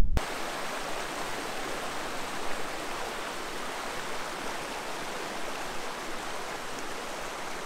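A small forest creek running: a steady, even rush of water.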